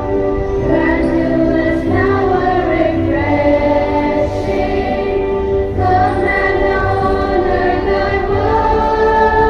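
School choir singing a prayer song, the voices holding long notes that move from one pitch to the next.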